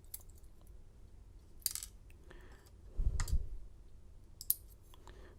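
Scattered light clicks and clinks of small metal parts being handled, about four separate events with a dull knock a bit past halfway: the lock's driver pins being picked out and sorted.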